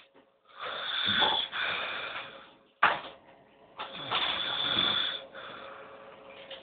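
A person snoring very loudly in a drunken sleep: two long snores a few seconds apart, with a sharp click between them.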